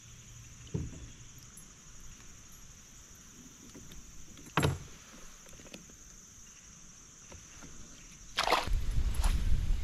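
Sharp knocks on a kayak's hull, a light one about a second in and a louder one near the middle, then a loud low rumble with a clatter that starts near the end.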